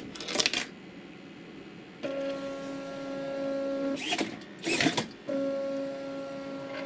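A coin clatters into a coin acceptor, then a stepper motor driving a cup carriage along a timing belt whines steadily for about two seconds, stops for a brief burst of clicking and servo whirring, and whines again for about two seconds.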